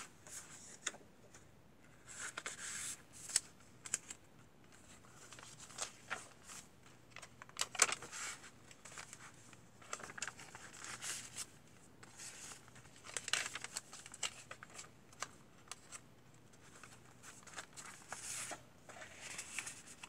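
Paper pages of a handmade junk journal being turned by hand: short, soft rustles and swishes of paper, with now and then a sharp flap or click as a page lands.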